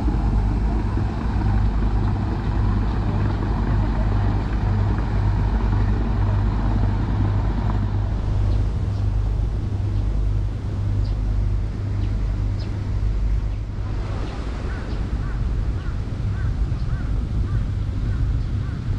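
Outdoor city ambience: a steady low rumble of road traffic, with birds calling in the second half, a quick run of repeated short calls near the end.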